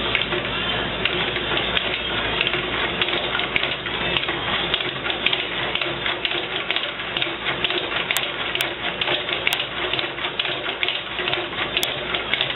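Homemade compressed-air engine running, its wooden triangular crank linkage and piston rods making a fast, irregular clatter of ticks and rattles over a steady noisy rush.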